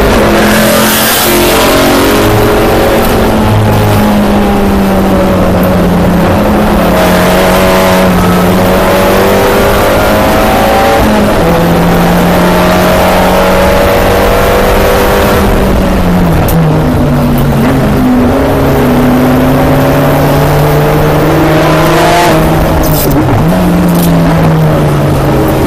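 A Volkswagen GLI touring race car's engine running hard, heard from inside the cockpit as a loud, steady drone. Its pitch drops in steps about eleven, sixteen and twenty-three seconds in.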